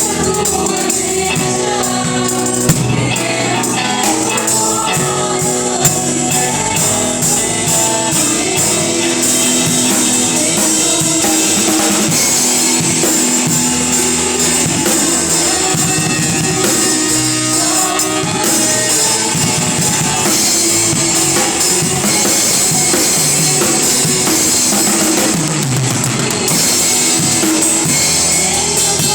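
Gospel worship music: a band with drum kit and tambourine keeping a steady beat under singing.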